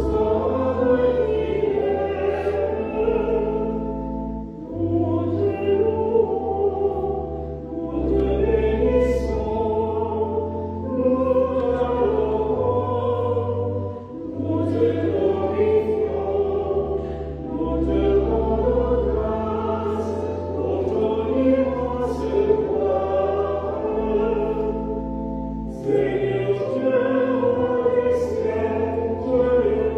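Choir singing sacred music phrase by phrase over steady low held notes, with brief breaks between phrases about four, fourteen and twenty-six seconds in.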